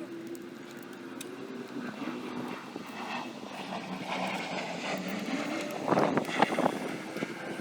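Engine drone of a passing vehicle, its pitch wavering slightly, with a short burst of clattering about six seconds in.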